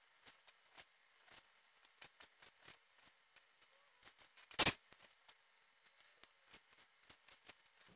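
Chef's knife slicing through a slab of lardo and tapping on a plastic cutting board: a run of soft, irregular taps, with one louder knock just past halfway.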